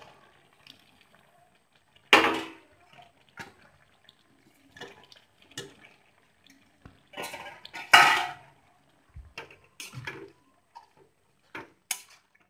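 A utensil stirring potato and soya chunk curry in a cooking pan, knocking and scraping against the pan in irregular strokes, with the loudest strokes about two seconds in and again about eight seconds in.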